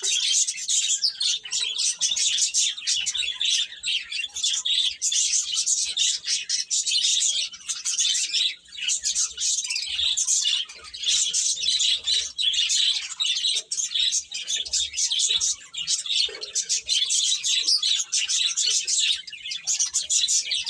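A group of baby chicks peeping continuously, many short high-pitched chirps overlapping in a dense chorus.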